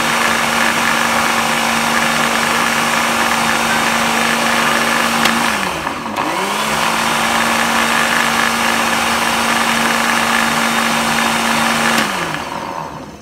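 Electric blender motor running at speed, blending milk and ice cream into a milkshake. About halfway through it slows down and spins back up, then winds down and stops near the end.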